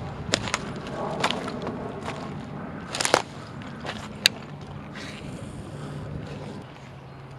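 Footsteps crunching on gravel, with a few sharp clicks and scrapes, the loudest about three seconds in.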